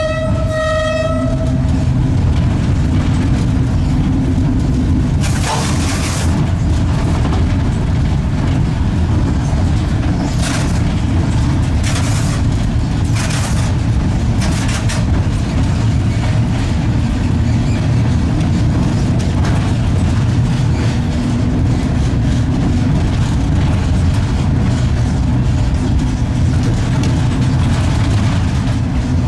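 Steady rumble of an East German-built EL2 electric locomotive and its coal wagons rolling along the track, heard from inside the cab. The locomotive's horn cuts off about a second in, and several short harsh noises come between about five and fifteen seconds in.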